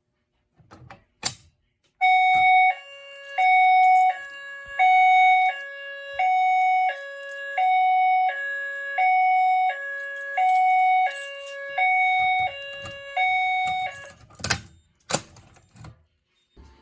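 Fire alarm sounder playing a hi-lo tone: a high and a low tone alternate, each held about 0.7 s, nine times over for about twelve seconds starting about two seconds in. A few sharp clicks or knocks come just before it starts and just after it stops.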